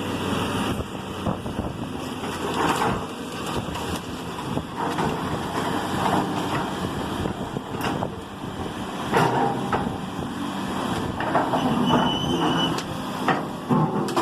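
Heavy demolition machine's engine running steadily while the house's structure cracks and crashes down in several separate bursts, with a brief high squeal near the end.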